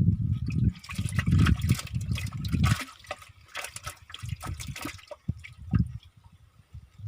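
Water splashing and trickling, with low rumbling handling noise in the first three seconds; the splashing fades out after about five seconds.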